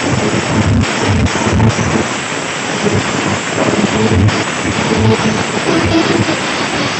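A very loud parade sound system playing music, overdriven on the recording into a rough, noisy roar with deep, uneven bass thumps.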